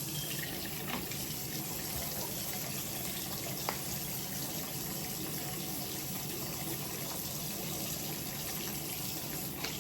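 Bathroom sink tap running in a steady stream, with a couple of faint clicks.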